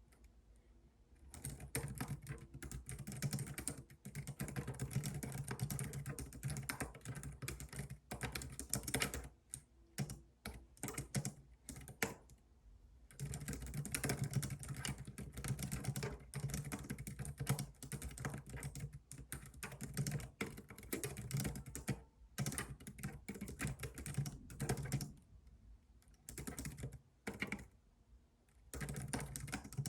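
Typing on a computer keyboard: fast runs of key clicks, broken by short pauses near the start, about a third of the way in, and shortly before the end.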